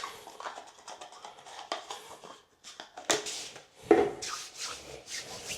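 Hands handling small hard parts and materials at close range: rubbing and scraping with scattered clicks, and two sharper knocks about three and four seconds in.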